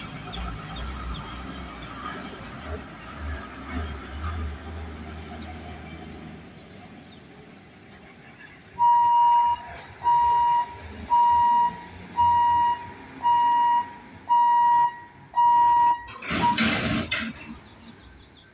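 A truck engine rumbles low as it crosses and fades away. Then a level-crossing warning beeper sounds seven steady beeps about a second apart, signalling that the boom barrier is closing for a train. A brief loud burst of noise follows near the end.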